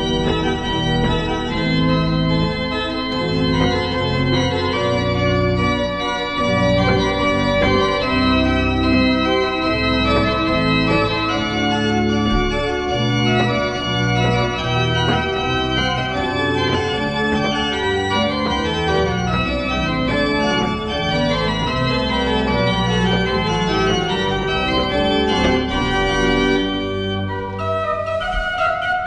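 Church pipe organ playing, with many notes moving over a sustained bass, the sound full and reverberant in the church.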